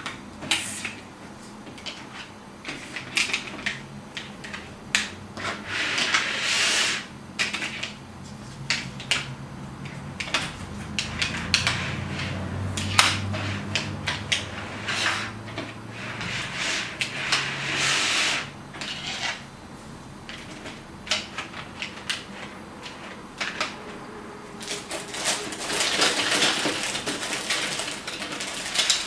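Plastic construction-set pieces being handled and snapped together, with irregular clicks, clacks and rattles.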